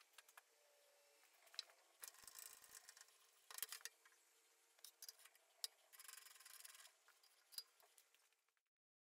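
Hands handling a resin-cast wood blank in the metal chuck of a stopped wood lathe: faint, irregular rubbing and scraping with scattered sharp clicks, over a faint steady hum. The sound cuts off near the end.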